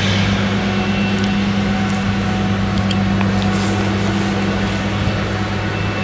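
Claas Jaguar 970 self-propelled forage harvester with an Orbis 750 maize header, running steadily while chopping maize: a loud, even low drone that holds one pitch.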